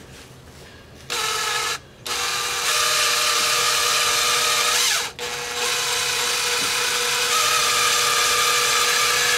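Cordless drill boring a pin hole through a Porsche 996 Turbo coolant pipe fitting, so that the fitting can be pinned against popping out. The motor whines steadily in three runs: a short burst about a second in, then two long runs with a brief pause around five seconds in.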